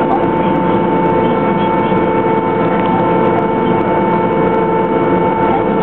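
Boeing Jetfoil's gas turbines and waterjet propulsion running steadily, heard aboard: a continuous whine with a strong steady tone over a dense rushing hum.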